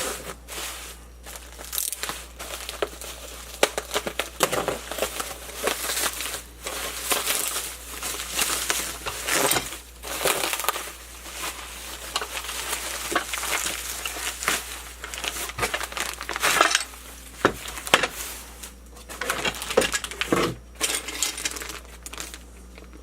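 Packaging being opened and handled: irregular crinkling and rustling of wrapping, with scattered clicks and light clacks of hard parts, dying away near the end.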